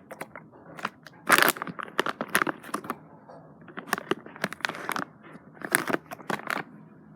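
A squishy toy's blind-bag package crinkling and tearing as it is opened, in irregular crackles, the loudest about a second and a half in.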